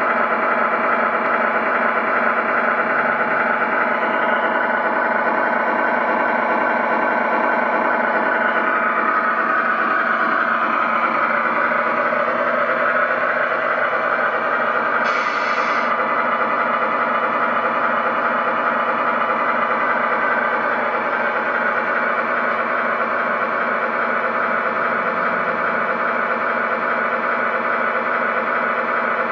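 A radio-controlled model car's motor running steadily, its pitch dipping for a few seconds partway through.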